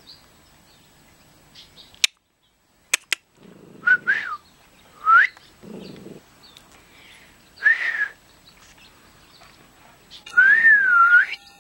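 A person whistling to catch a coyote's attention: short rising whistles about four, five and eight seconds in, then a longer wavering whistle near the end. A few sharp clicks come around two and three seconds in.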